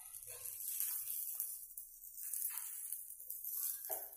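Green chillies sizzling in a little oil on a flat pan, with a steady hiss, while a wooden spatula scrapes and turns them about once a second.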